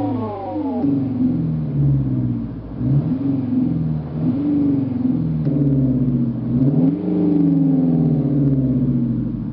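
Renault R-Sound Effect: a synthesized engine note played through the car's speakers, its pitch falling early on and then rising and falling several times with the revs, like a sporty car accelerating and backing off.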